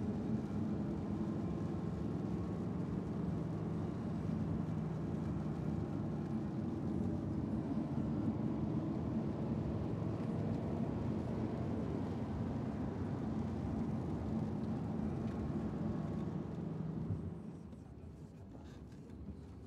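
Car engine and tyre noise heard from inside the cabin, driving at a steady pace on a wet road. It drops in level about 17 seconds in as the car slows.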